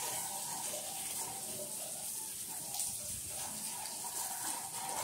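Heavy rain pouring down steadily, an even hiss of downpour.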